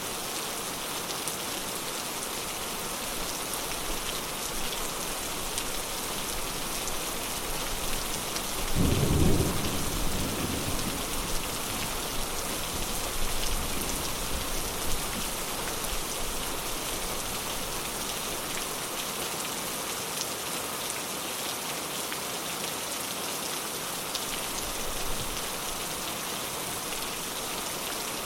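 Steady heavy rain with a clap of thunder about a third of the way in, a deep rumble that dies away over a couple of seconds, followed by a fainter grumble.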